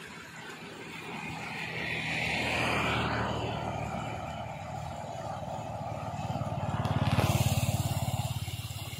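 Floodwater rushing and churning as it pours across a road, with a low rumble that swells to its loudest about seven seconds in.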